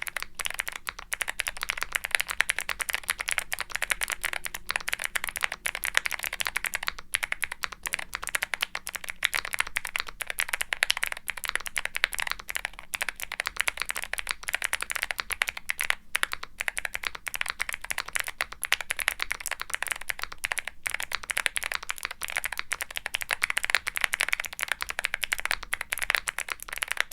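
Fast continuous typing on a mechanical keyboard with Gateron Melodic clicky switches in an aluminum Womier SK75 with a polypropylene plate. Each keypress gives a crisp click followed by a deeper clack at bottom-out, with only brief pauses.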